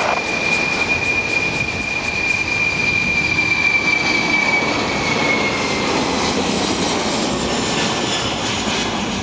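A Boeing 747-400 combi's four turbofan engines at takeoff power as the jet lifts off and climbs away: a loud jet roar with a high, steady whine that slides down in pitch and fades about five seconds in.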